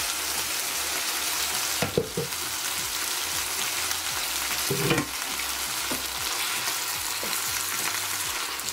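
Chicken pieces and mushrooms sizzling steadily in a frying pan in a thin watery sauce. There are a couple of short knocks about two and five seconds in, and a wooden spatula stirs the pan near the end.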